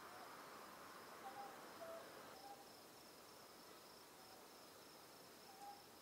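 Ryukyu scops owl giving a few short, faint hoots, the clearest about a second and a half in and near the end, over a steady high-pitched insect trill. A second, lower insect buzz cuts off about two seconds in.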